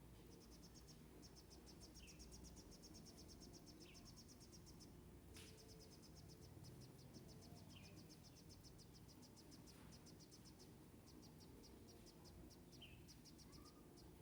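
Faint insect chirping in long runs of rapid, evenly spaced high pulses that break off now and then, with a few short falling chirps over it.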